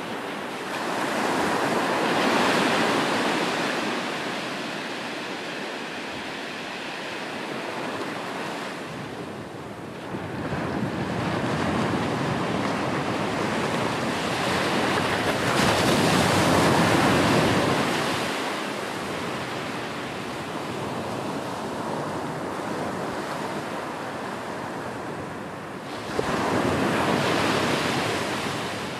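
Sea surf: waves breaking and washing against a sea wall, the rushing noise swelling and ebbing in slow surges. Three surges are loudest: near the start, midway and near the end.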